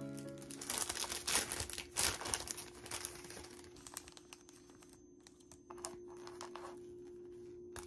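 Clear plastic packaging bag crinkling loudly as it is handled and opened for about two seconds, followed by fainter light clicks and taps of a beaded bracelet and phone case being handled.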